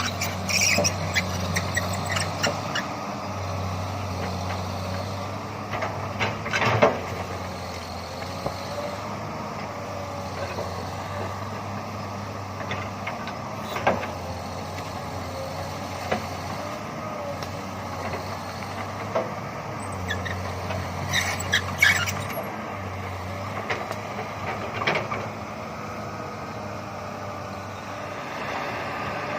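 Komatsu PC200 hydraulic excavator's diesel engine running steadily under work, with short squeals and sharp knocks now and then as it moves and handles brush.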